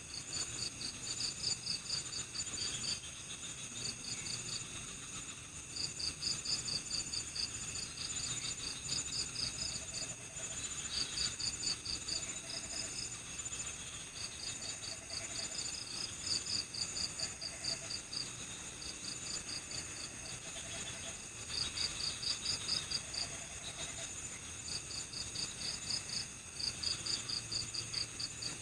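Night-time chorus of crickets: rapid high-pitched pulsed chirps in bursts of about a second, repeating over a steady shrill insect trill. Faint short low notes recur every second or two through the middle.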